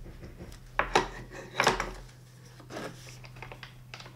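Hard plastic office-chair parts being handled, with a few scattered knocks and clicks as the headrest is set against the backrest. The sharpest knocks come about a second in and again a little later.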